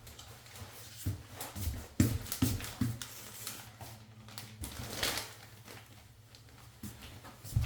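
Irregular light knocks, taps and rustles of objects being handled, the sharpest knock about two seconds in, over a low steady hum.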